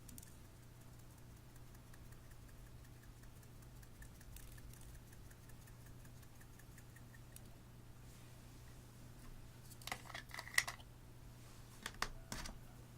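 Clear slime being worked by hand, giving a few clusters of small sticky clicks and pops, the loudest about ten and twelve seconds in, over a faint steady hum.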